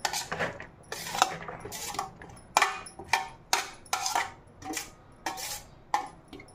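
Steel spoon scraping and tapping against a steel serving tray, pushing chopped vegetables off it. The clinks come quickly one after another, about two or three a second in the second half.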